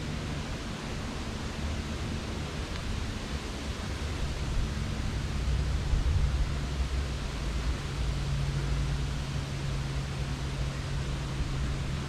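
Steady outdoor rushing noise of wind in the trees and on the microphone, with a low rumble that swells about four seconds in and gusts around the middle.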